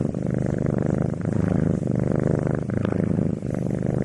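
Domestic cat purring close up: a steady, loud, low rumble with brief dips roughly every second or so as it breathes in and out.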